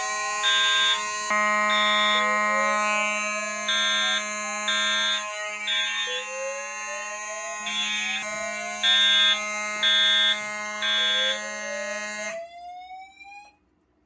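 Fire alarm notification appliances sounding in alarm, set off by a tripped Silent Knight SK-Photo-W photoelectric smoke detector. A rising whoop sweep repeats about every second and a half, layered with short pulsed horn blasts and steady high tones. The signals cut off suddenly near the end as the alarm is silenced.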